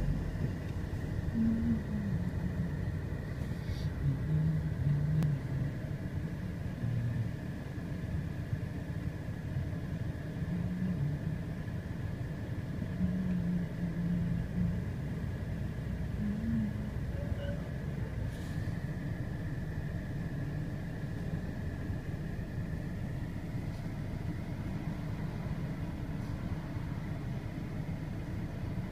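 Steady low vehicle rumble, with a faint thin high tone running through much of it.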